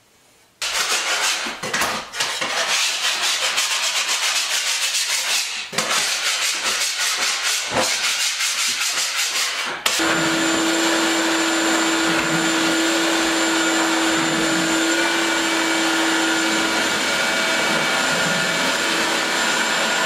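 About ten seconds of rapid, rasping scraping in quick regular strokes with a few short breaks, then a wet/dry shop vacuum switches on and runs steadily with a constant hum, sucking up floor debris.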